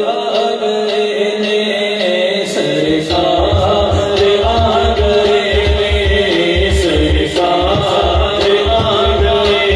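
A man sings a devotional Islamic kalam in qawwali style, with a steady melodic accompaniment. A low, regular drum beat comes in about three seconds in.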